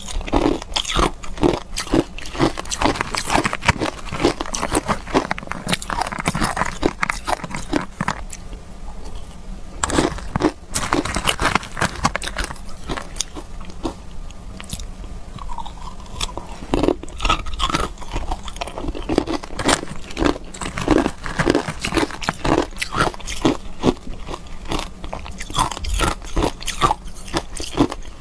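Ice dusted with matcha powder being bitten and chewed, close-miked: dense, repeated crunching that thins out for a moment about eight seconds in.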